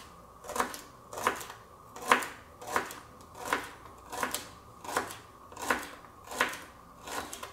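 Kitchen knife chopping celery stalks crosswise on a plastic cutting board: even, steady strokes, about three every two seconds.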